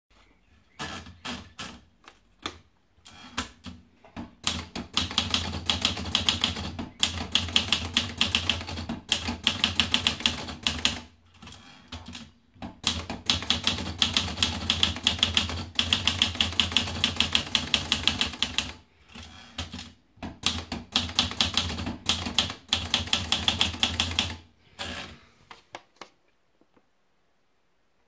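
Olivetti Lettera 32 manual portable typewriter. A few clicks as paper is rolled in, then three runs of rapid keystrokes, one for each line typed, with short pauses between the lines.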